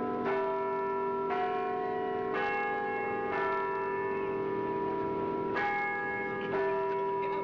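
Church bells pealing, a bell of a different pitch struck about once a second, each one ringing on under the next.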